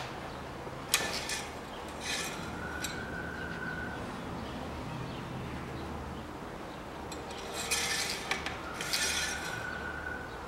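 Clicks and scraping of hand work on the engine top. It comes in short bunches a second in, two to three seconds in and again late on, ending as the engine-oil dipstick is drawn out of its tube to read the freshly filled oil level.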